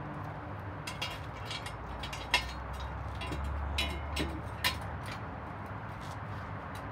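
A few sharp clicks and light knocks, the loudest about two and a half seconds in, over a steady low hum.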